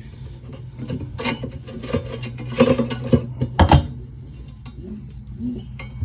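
Clicks and metallic clinks from hands handling a washing machine's direct-drive motor rotor and its wiring, with the loudest knocks around the middle, over a steady low hum.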